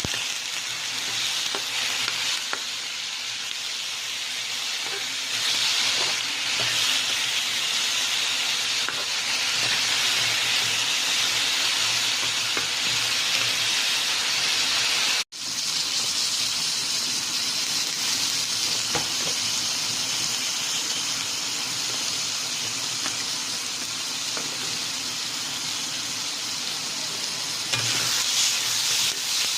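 Food frying in hot oil in a pan: a steady sizzle with faint scattered ticks of stirring. The sound cuts out for an instant about halfway through, then resumes.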